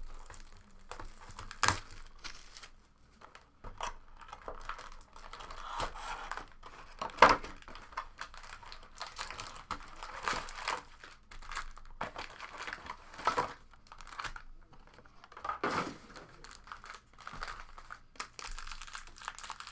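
Plastic wrapping on a box of trading cards and its packs crinkling and tearing as they are opened, in irregular crackles, the loudest a sharp one about seven seconds in.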